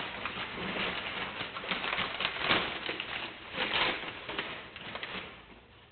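Rustling and crinkling of packing material as items are handled and lifted out of a shipping box: irregular crackles that die down near the end.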